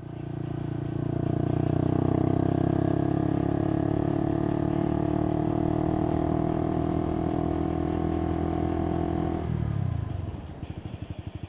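Motorcycle engine running steadily at cruising speed, its note easing down slightly. Near the end the throttle closes: the note drops away and the level falls, leaving a low, evenly pulsing engine beat as the bike slows.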